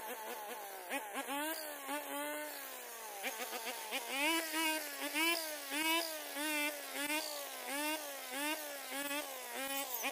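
Small Shibaura two-stroke brush cutter with a round metal blade, cutting grass. The engine's buzz dips in pitch and picks up again over and over, about twice a second from about three seconds in, as the blade takes on grass and clears it.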